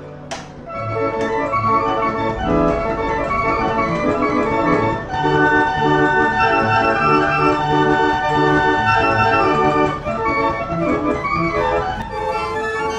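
Organ music playing, with chords repeated in short pulses over a pulsing bass line.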